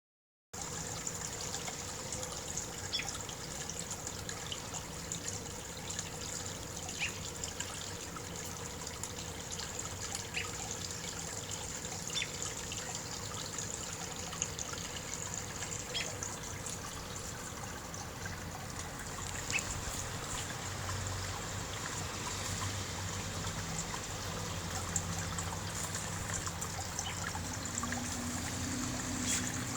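Water trickling and babbling steadily in a small brook, with scattered brief drips and splashes.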